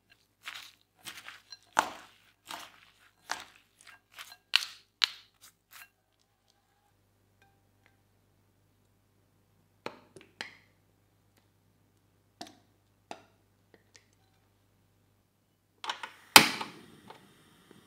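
Wooden chopsticks stirring shredded raw potato and cornstarch in a glass bowl: a quick run of crisp crunches and knocks for about six seconds. Near the end, a gas stove burner is lit with one loud igniter click and a short rush of catching flame.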